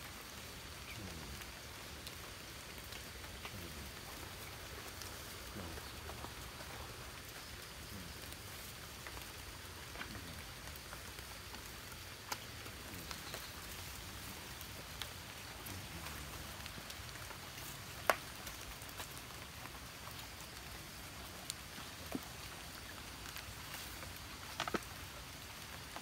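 Light rain falling steadily, a soft even patter, with a handful of sharp taps scattered through it. The loudest tap comes about two-thirds of the way through.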